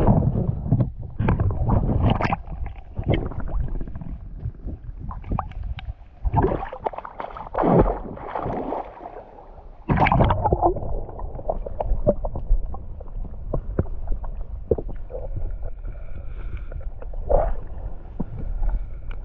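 Water sloshing and gurgling against a camera held by a swimming spearfisher, with irregular splashes; from about halfway through, the steadier muffled rumble of water around the submerged camera.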